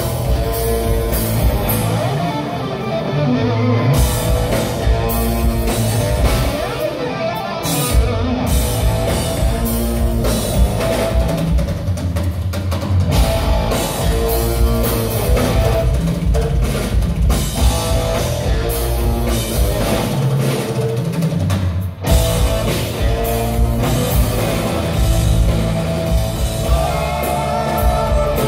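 Live rock power trio playing loud and steady: electric guitar, electric bass and drum kit, amplified through the hall. About 22 seconds in the band stops for an instant, then comes back in on a hard hit.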